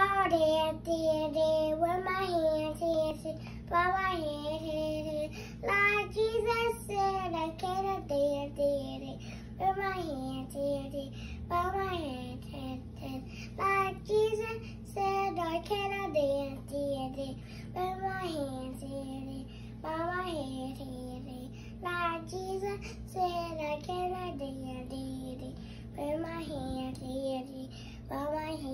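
Young child singing a short wordless melody, repeating the same rising-and-falling phrase about every one to two seconds.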